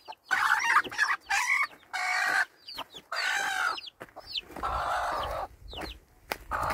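Chickens clucking and calling: a series of short, loud calls about half a second to a second long, with thin high peeps between them.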